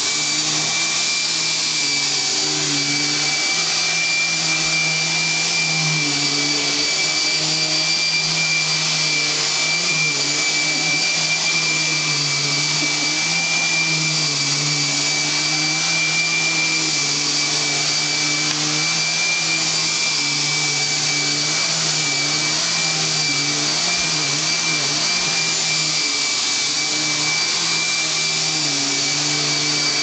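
Upright vacuum cleaner running continuously on carpet: a steady high whine over a rushing hiss, with a lower hum that wavers.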